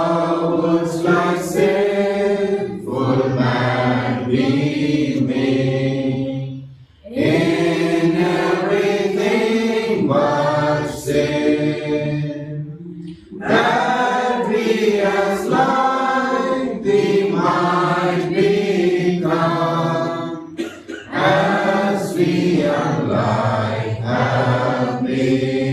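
Congregation singing a hymn together without instruments, in four long phrases with brief pauses for breath between them.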